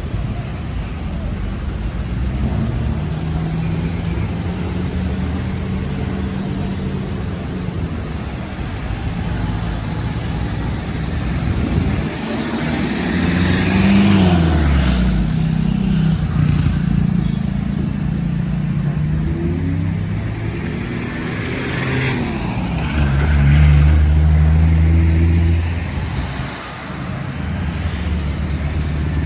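City street traffic: engines of cars and other vehicles running and passing close by. A louder vehicle goes past with falling engine pitch about halfway through, and another loud engine runs a few seconds before the end.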